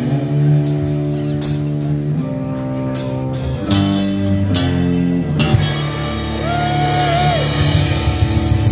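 Live band of acoustic and electric guitars, bass and drums playing an instrumental outro, with cymbal crashes through the first half and a held high note that bends slightly about two-thirds of the way through.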